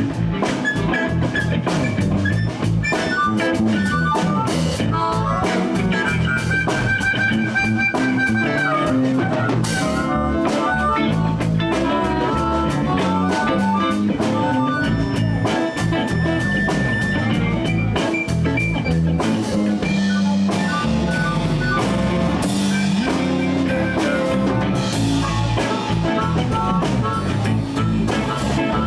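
Live blues band playing an instrumental break: electric guitars, bass and drum kit with a steady beat, and a lead line that holds some high notes for a second or two.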